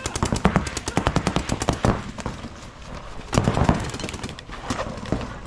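Paintball markers firing rapid strings of shots, a fast even rattle of sharp pops. The firing is heaviest in the first two seconds, with another burst about three and a half seconds in and a few more shots near the end.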